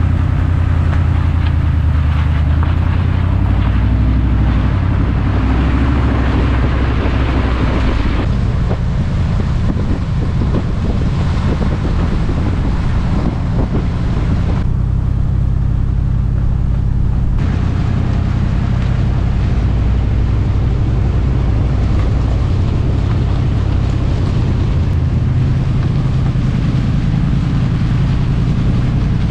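Truck rolling along a slick, icy mountain road: a steady low rumble of engine and tyres, with wind buffeting a camera microphone mounted outside the vehicle. The sound shifts abruptly a couple of times.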